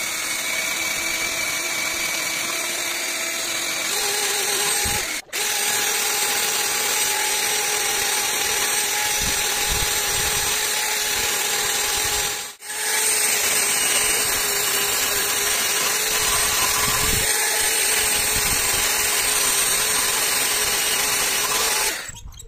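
End mill spinning in a power-driven spindle and cutting a notch into the edge of a metal disc: a steady motor whine over the hiss of cutting. It breaks off briefly twice and stops near the end.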